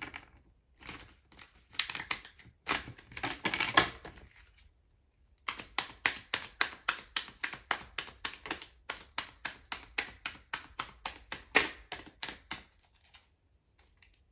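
A tarot deck being shuffled by hand. First come a few seconds of cards sliding and rustling, then a steady run of sharp card clicks, about four a second, for some seven seconds.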